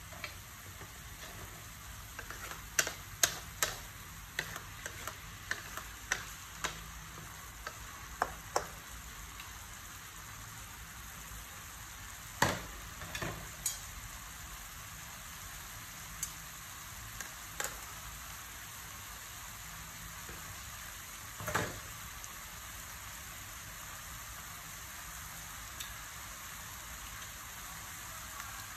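Noodles with beef and broccoli sizzling in a metal wok: a steady frying hiss with scattered sharp pops and clicks, busiest in the first several seconds.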